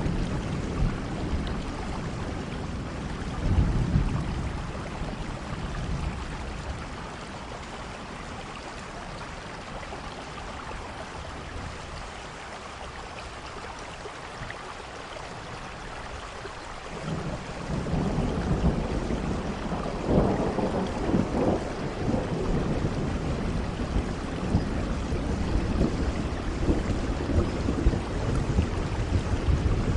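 Steady rain with rolling thunder. A rumble fades over the first few seconds, then it is calmer for about ten seconds, until a long, heavy roll of thunder builds a little past halfway and keeps rumbling in swells.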